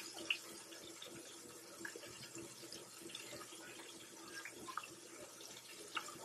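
Floured chopped steak patties shallow-frying in hot oil in a pan: a faint, steady sizzle with scattered small pops.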